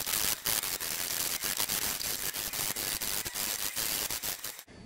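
Cauliflower being shredded: a steady, harsh rasping noise with many irregular scraping strokes, starting and stopping abruptly.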